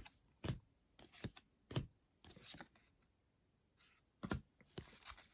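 Trading cards being handled and flipped through by hand: a string of short, crisp card snaps and light paper rustles, about one every half second.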